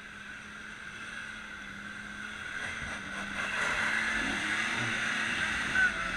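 4x4's engine working hard up a steep dirt climb, getting steadily louder as it comes closer. A brief sharp sound near the end is the loudest moment.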